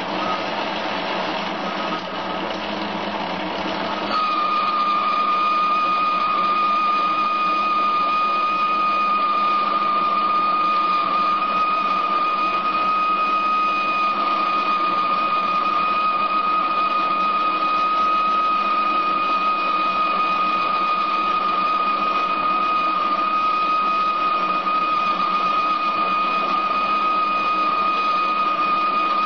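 Paramount BLC-1016 bench lathe running under power feed on its finest feed rate, boring hard steel with a light boring bar. About four seconds in it gets a little louder and a steady high-pitched whine sets in and holds.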